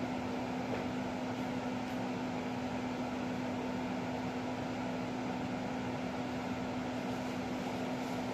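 Steady machine hum with one constant low tone, unchanging throughout.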